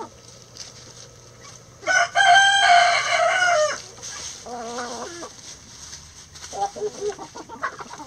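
A rooster crows once, a long call starting about two seconds in and lasting nearly two seconds, the loudest sound here. Hens cluck in short calls after it.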